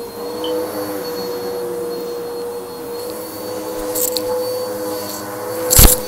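Upright vacuum cleaner running steadily with a constant motor whine as it is pushed over thick shag carpet. A couple of clicks come about four seconds in, and a loud thump just before the end.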